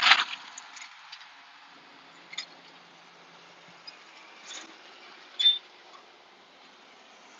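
Posca acrylic paint marker dabbing on canvas: a few faint taps and one short, sharp squeak about five and a half seconds in. A brief rush of noise cuts off right at the start.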